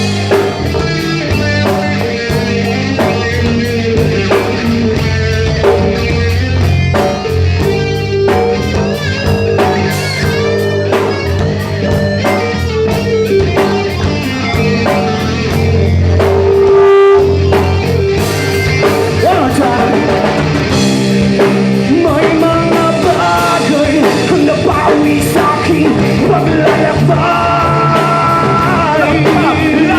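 Rock band playing live: electric guitar, bass guitar and drum kit at a steady beat, with a singing voice.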